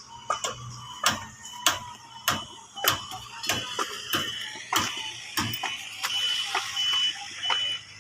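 Steady, evenly paced hammer strikes at a construction site, about one and a half a second, with a short high tone repeating several times a second beneath them.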